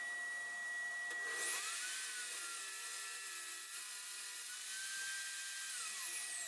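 Table saw running with a steady whine, then ripping a strip from a 15 mm multiplex plywood board from about a second in until near the end, the blade note dropping and wavering under load. The cut finishes near the end and the saw returns to running free.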